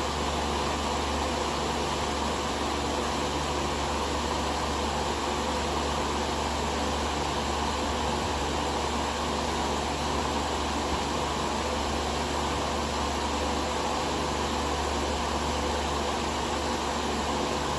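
Lasko 16-inch Performance table fan, model 2506, running steadily: an even rush of air over a low hum.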